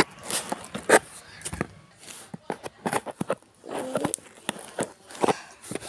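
Packing tape on a cardboard shipping box being cut open with a blade, with irregular clicks, scrapes and rustles of the tape and cardboard being handled.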